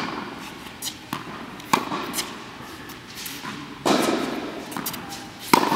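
Tennis rally: a ball hit back and forth with rackets and bouncing on the court, each hit a sharp pop that echoes round the large indoor hall. The loudest hits come a little under 4 s and about 5.5 s in, with softer bounces and clicks between.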